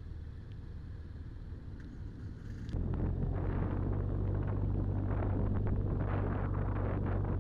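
BMW R1200RT's boxer-twin engine running at low speed, quiet at first and then much louder from about three seconds in, with wind rushing over the microphone as the bike rides along.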